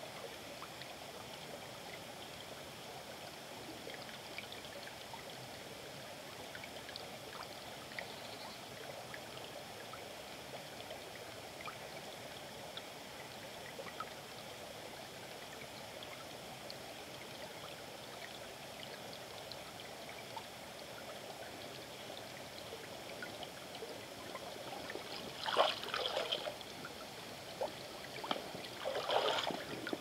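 Shallow river trickling and flowing steadily over rocks, with small scattered drips and ticks. Near the end come two louder bouts of splashing, about three seconds apart.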